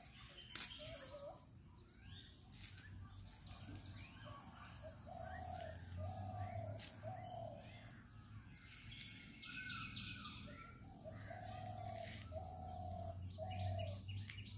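Faint outdoor ambience of birds: one bird calling in groups of three or four short, even notes, with scattered small chirps from others over a steady high-pitched drone.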